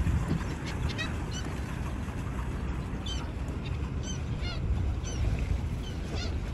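Birds calling: short, repeated calls in a few clusters, over a steady low rumble.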